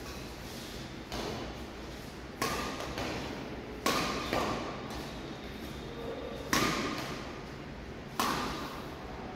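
Badminton racket strikes on shuttlecocks, about six sharp hits one to two seconds apart, each echoing in a large hall; the hit about six and a half seconds in is the loudest.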